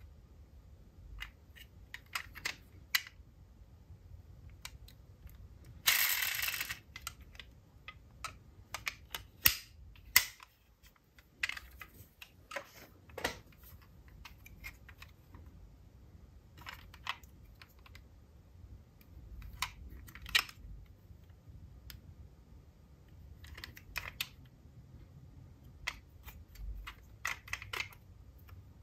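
Die-cast metal toy cars being handled: scattered light clicks and clacks as the small cars are picked up and set down, with a brief scraping rustle about six seconds in and a couple of sharper knocks a few seconds later.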